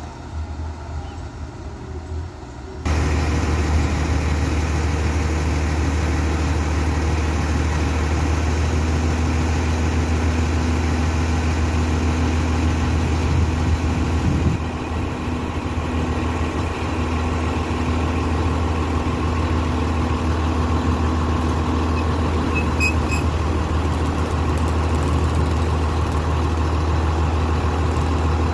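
Diesel engine of an XCMG QY25K truck crane running steadily with a deep low hum, growing louder about three seconds in.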